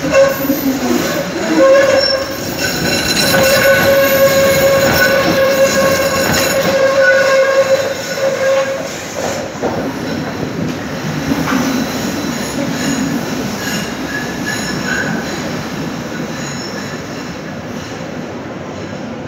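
Tram wheels squealing on a curve of track in a tunnel: a loud, steady screech with several high tones for about the first eight seconds. Then the tram keeps running with a rumble that slowly gets quieter.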